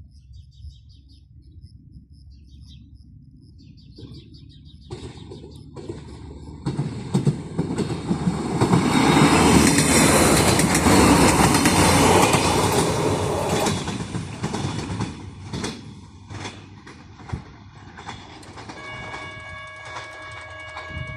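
A train passing over a level crossing: the rumble builds for several seconds, is loudest midway, then fades with a run of rail-joint clicks. Near the end a steady pitched tone sets in.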